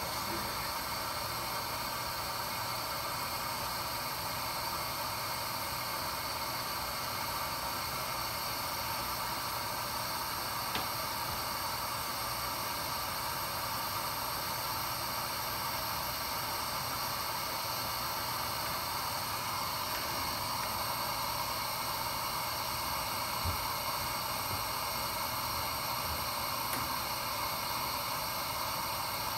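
Steady hiss of hot gas flow from a Finetech Fineplacer Core rework station while it heats a BGA chip to reflow its solder balls, with a faint steady machine hum under it.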